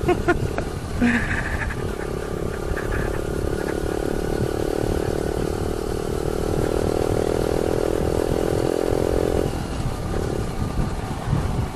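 Yamaha YBR 125's single-cylinder four-stroke engine running steadily while the motorcycle is ridden, over constant wind and road rush; the engine note drops away about nine and a half seconds in.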